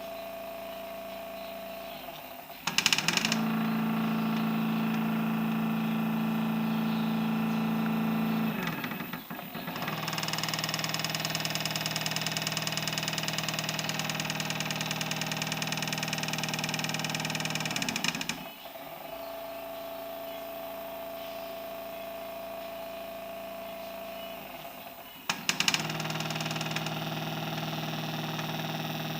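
Stepper motors of a home-built CNC router driving its gantry, a steady machine whine made of several tones whose pitch holds during each move and shifts from one move to the next. There are three louder stretches, starting about 3, 10 and 26 seconds in, with quieter stretches between them, each louder stretch beginning with a short sharp onset.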